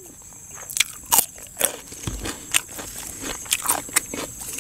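Crunching and chewing a bite of raw cucumber close to the microphone: irregular crisp crunches, several a second.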